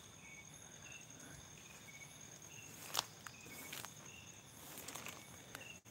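Night insects chirping: a steady high-pitched buzz with short chirps repeating about twice a second. A few light footstep crunches in the undergrowth, the loudest one about three seconds in.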